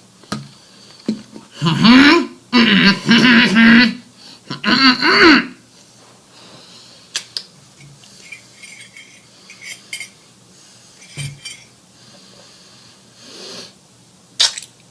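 Three loud belches brought up by carbonated sparkling water, about two, three and five seconds in, the middle one drawn out. Then quiet, scattered clinks and rattles, with a sharper click near the end.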